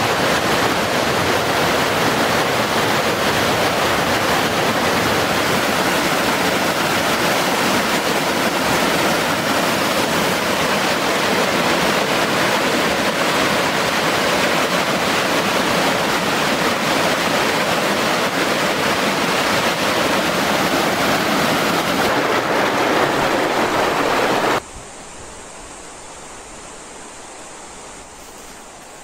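Mountain stream rushing over rocks: a loud, steady rush of water. Near the end it cuts off suddenly, leaving a much quieter outdoor background.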